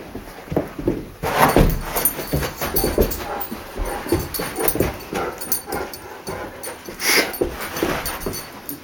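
Dogs playing: short dog whines and yips mixed with scuffling movement, coming in irregular spurts. There are two louder sharp noises, about a second and a half in and near seven seconds.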